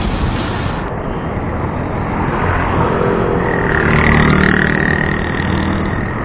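Road traffic heard from a moving bicycle: steady road noise, with a motor vehicle passing that is loudest about four seconds in.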